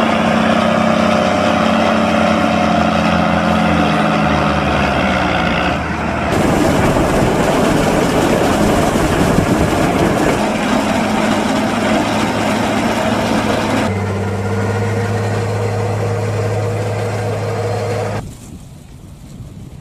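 A Case IH tractor's diesel engine runs as it pulls a loaded forage wagon onto the silage clamp, its pitch easing down slightly. About six seconds in, this gives way to the dense, even noise of a Schuitemaker Siwa forage wagon unloading chopped corn silage. About fourteen seconds in, that changes to the steady engine of a Volvo L70D wheel loader on the clamp, and near the end the sound drops to a faint hiss.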